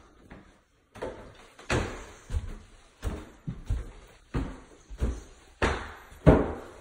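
Footsteps climbing a wooden staircase: a steady run of thuds on the treads, about three every two seconds, starting about a second in.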